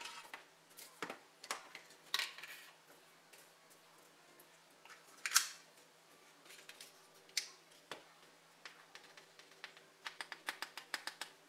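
Measuring spoon clicking and tapping against a baking powder container and a mixing bowl as baking powder is measured out, with one sharper click about five seconds in and a quick run of small clicks near the end.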